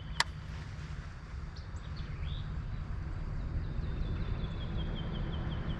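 A songbird singing a rapid string of short falling chirps, strongest in the second half, over a low steady rumble. One sharp click sounds about a quarter of a second in.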